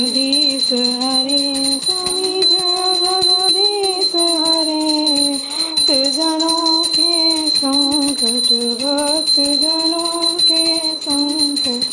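A woman's voice singing an aarti melody, with a small hand bell ringing rapidly and steadily behind it.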